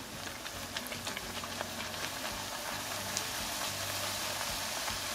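Corn tortillas deep-frying in hot oil in a cast-iron skillet: a steady sizzling hiss with scattered pops and crackles, growing a little louder.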